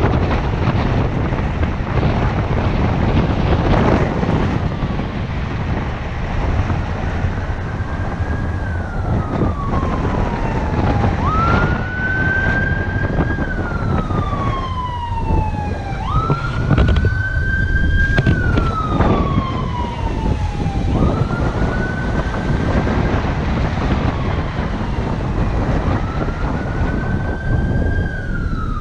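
A siren wailing in slow repeated cycles, starting about eight seconds in. Each cycle is a quick rise to a held high note and then a long falling glide, about every five seconds. Under it runs steady wind and road noise from the moving car.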